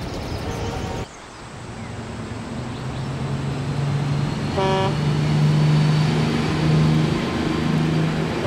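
Road traffic: a motor vehicle's engine running with a steady low drone that grows louder, and one short horn toot about halfway through.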